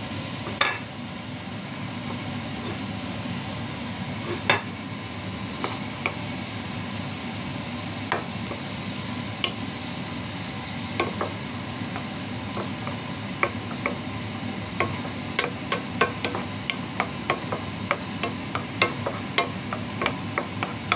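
Diced onion sizzling in melted butter in a frying pan, stirred with a wooden spatula that clicks and taps against the pan, the taps coming quickly in the last several seconds.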